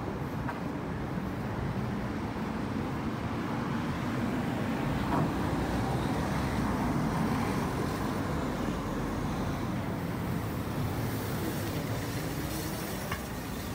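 Steady rumble of vehicle traffic, a little louder about halfway through.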